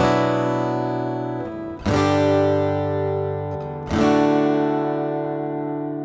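Background music on acoustic guitar: three strummed chords about two seconds apart, each left to ring and fade.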